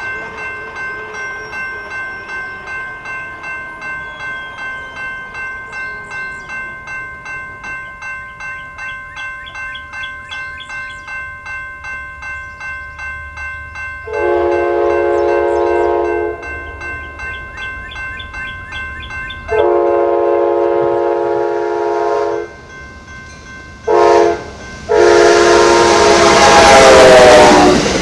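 A railroad crossing bell rings steadily, about two and a half strikes a second, as the Amtrak train approaches. Then the Amtrak Genesis locomotive's air horn sounds the grade-crossing signal: long, long, short, long. The last blast runs on as the locomotive passes close by, with a rising rush of engine and wheel noise.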